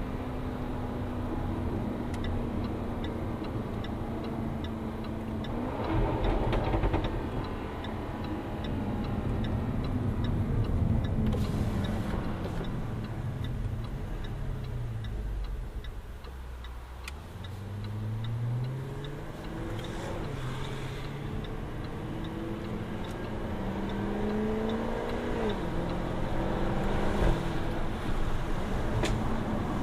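2016 Jaguar F-Type R's supercharged 5.0-litre V8 pulling up through the gears, its pitch rising and dropping sharply at each upshift. About midway it eases off with the pitch falling, then accelerates hard again. A few sharp exhaust cracks come on and off the throttle.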